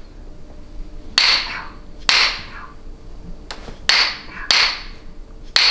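A chiropractic adjusting hammer strikes a metal adjusting tool held against the hip and buttock: about five sharp metallic taps at uneven intervals, each with a short high ring, and one lighter tap between them.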